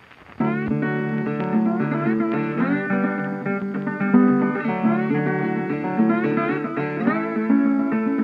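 Background music: a plucked-string tune with sliding notes, starting just under half a second in.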